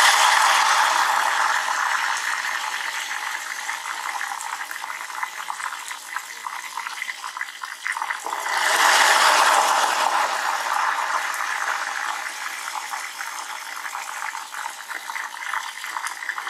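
Thin ghevar batter poured by the spoonful into hot oil in a deep steel pot, sizzling and frothing hard. Each pour sets off a loud surge of sizzling that slowly dies down; a fresh pour about halfway through brings it back up.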